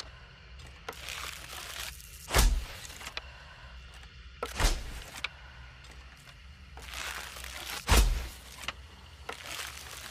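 Hunting bow and arrow: three sharp thumps a few seconds apart, each with a short tail.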